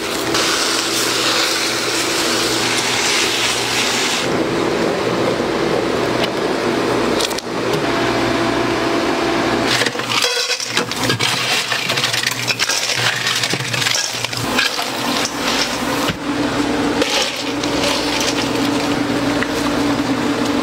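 Kitchen work sounds: a steady mechanical hum with scraping, clinks and knocks of metal bowls and utensils, breaking off and changing at several cuts.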